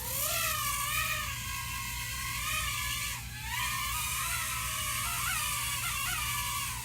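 JJRC H18 nano hexacopter's six tiny motors and propellers whining in flight, rising in pitch at the start. The pitch wavers, dips briefly about three seconds in, then jumps quickly up and down near the end.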